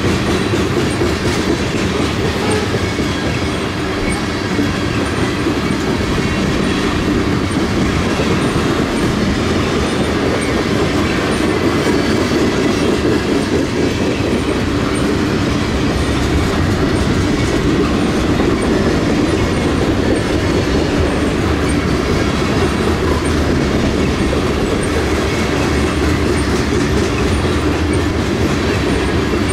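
Freight train of mixed cars rolling steadily past, a continuous rumble of steel wheels on rail with regular clicks over the track joints.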